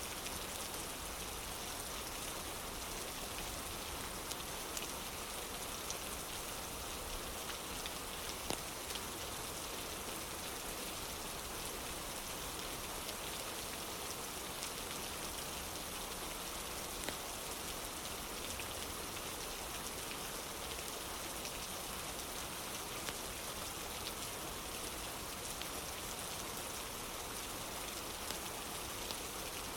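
Steady rain falling, a continuous even hiss with scattered sharp ticks and pops, the strongest about eight and seventeen seconds in.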